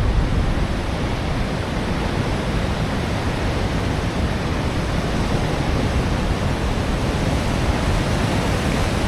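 Rough surf of a stormy sea: a steady, unbroken rush of breaking waves.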